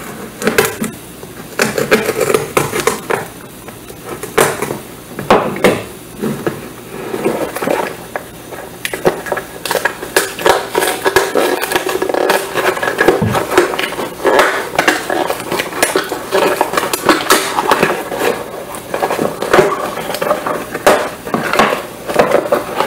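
Hands tearing and pulling open a Priority Mail cardboard box: cardboard and paper ripping and rustling, with many sharp clicks and knocks as the box is handled on a wooden table.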